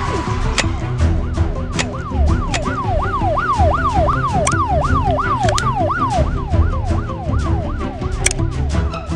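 Police car siren in a fast yelp, its pitch rising and falling about two or three times a second, loudest in the middle and fading near the end, over background music with a heavy low beat and a few sharp hits.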